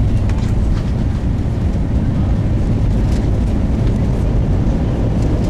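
Airbus A320 decelerating on its landing rollout, heard inside the cabin: a loud, steady low rumble of the engines and the wheels on the runway, with the ground spoilers deployed.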